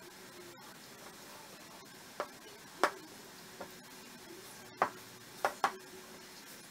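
Metal spoon stirring stiff pastillas dough of powdered milk and condensed milk in a ceramic bowl, clinking sharply against the bowl six times from about two seconds in.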